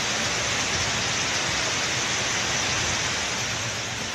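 Muddy floodwater pouring down rocks in a waterfall-like torrent: a steady, even rushing of water.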